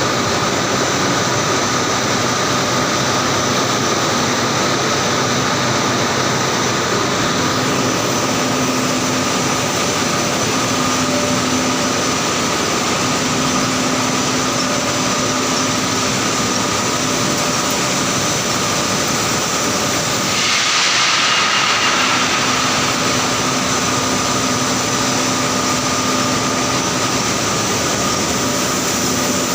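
Steady loud drone of industrial machinery on a steel strip galvanizing line, with a steady whine over it and a low hum that comes and goes. About two-thirds of the way through, a hiss swells for a second or two.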